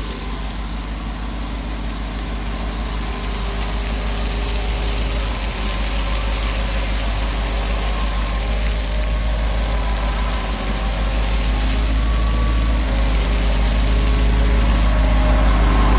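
Engine running steadily at constant speed, driving a rebuilt impeller water pump that is moving water, with a steady hiss over the engine note. The sound grows gradually louder.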